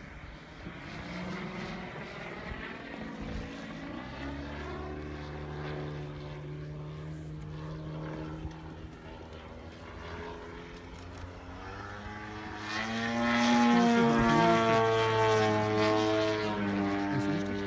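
Engine and propeller of a 2.7 m Pilot RC 330 SV radio-controlled aerobatic plane in flight, its pitch sliding up and down as it manoeuvres. About twelve seconds in it grows much louder as the plane comes closer, then eases off slightly near the end.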